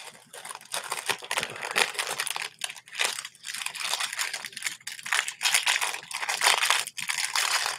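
Crinkling and rustling of jewelry packaging being handled: a continuous run of irregular crackles.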